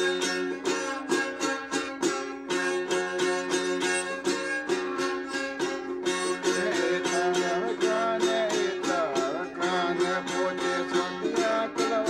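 Music of a quickly strummed small string instrument, about four strokes a second over steady notes, with a gliding melody line joining about six seconds in.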